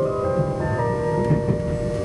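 A train's onboard chime melody of held notes stepping in pitch, the cue that comes before the arrival announcement. Under it runs the low rumble of the train on the track.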